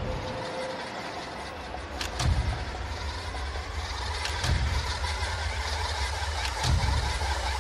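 Horror movie trailer sound design: a heavy low rumble under a wash of noise, struck by sharp hits about two seconds in, again around four and a half seconds and near seven seconds, slowly getting louder.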